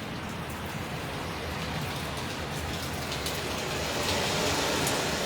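Hurricane rain and wind: a steady hiss of heavy rain with a low rumble beneath it, growing a little louder near the end.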